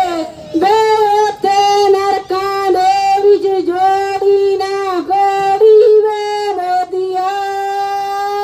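A woman wailing a sung Punjabi mourning lament (siapa) into a microphone, in long held notes broken every second or so.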